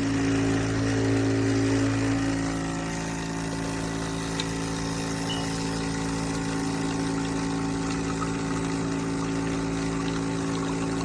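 Breville Bambino espresso machine's vibration pump running with a steady buzzing hum. It is a little louder for the first two seconds or so, then settles.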